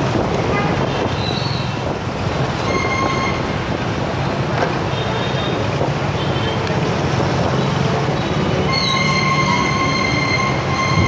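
Motorbike ride in dense scooter traffic: engine drone and road noise run steadily. A high, steady squealing tone comes in about nine seconds in and holds, with a brief one about three seconds in.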